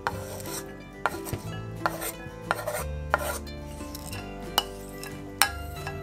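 Wooden spoon scraping and knocking against a wooden cutting board and dishes as chopped onion is pushed into a glass bowl: a run of short scrapes, then a few sharp knocks near the end. Soft background music plays underneath.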